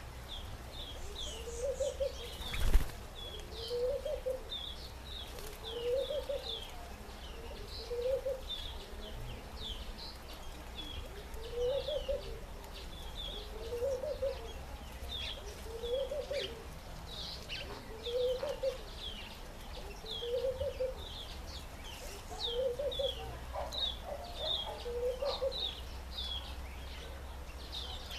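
Garden birds calling: a low cooing call repeated about every two seconds over a steady run of high, quick chirps from small birds. One sharp thump about three seconds in.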